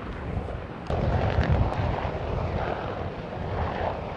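UH-1Y Venom helicopter's rotor and twin turboshaft engines running, with heavy wind rumble on the microphone; the noise gets suddenly louder about a second in as the helicopter lifts off.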